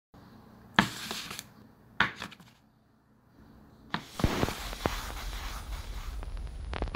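Record turntable sounds: three sharp mechanical clicks with short rustles, about a second apart. Then a stylus sets down and vinyl surface noise starts, a steady low rumble with scattered crackles.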